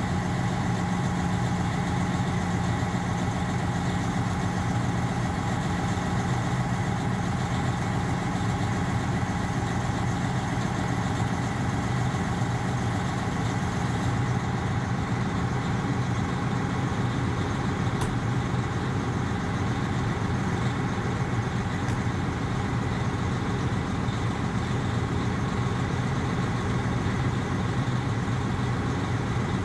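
Detroit diesel engine of a 2015 Peterbilt 389 glider truck idling steadily, freshly cranked and warming up.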